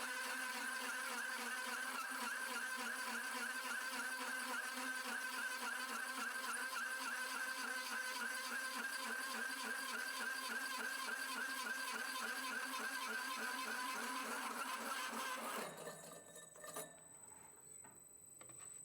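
Drill press turning a 2-inch carbide hole saw through 304 stainless steel plate under load: a steady whine with a fast, even pulse, which stops abruptly near the end, followed by one faint knock.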